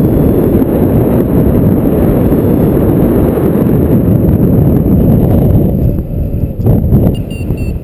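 Wind buffeting the microphone of a camera on a paraglider in flight: a loud, steady, low rush that dips briefly about six seconds in, then gusts up again.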